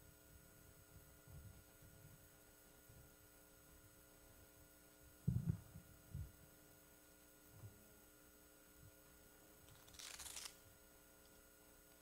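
Near-silent room with a faint steady electrical hum. About five seconds in come two dull thumps a second apart as things are set down on a wooden lectern fitted with a microphone, and a short rustle follows near the end.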